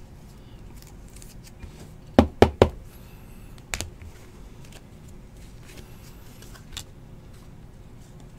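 Trading cards being handled on a tabletop: faint clicks and rustles, with three sharp knocks in quick succession about two seconds in and a smaller one a second or so later as cards are set down on the table.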